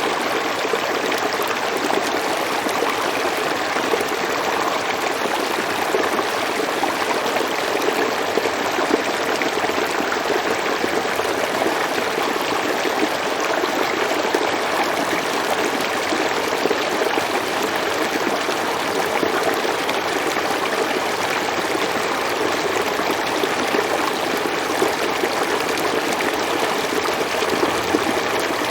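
Water flowing in a stream, a steady babbling rush that starts suddenly and holds an even level.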